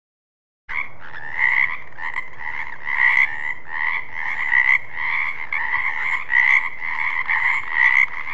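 Frog croaking: a continuous run of nasal calls pulsing about twice a second. It starts suddenly a little under a second in.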